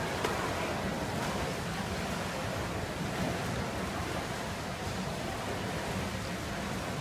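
Steady noisy ambience of an indoor pool hall, with one short click just after the start.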